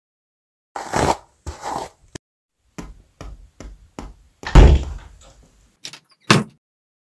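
Cartoon sound effects: two scraping hairbrush strokes, then a few light footsteps and a heavy door thud, the loudest sound, followed by a shorter knock near the end.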